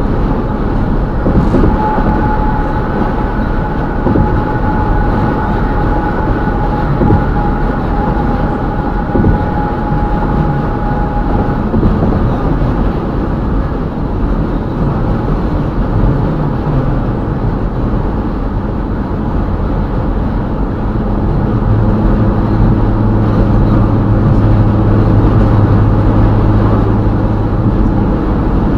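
Steady road rumble of a car driving at highway speed. A higher steady whine runs through roughly the first ten seconds, and a low steady hum comes in for the last several seconds.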